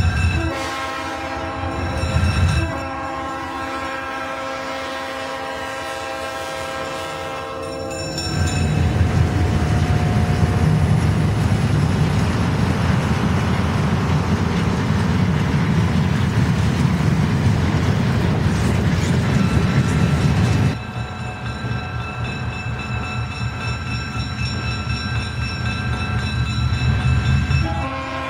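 Diesel locomotive air horn sounding in long blasts. About eight seconds in, a train passes close by with loud rumbling engine and rail noise, which drops off suddenly after about twenty seconds, leaving a steady horn-like tone.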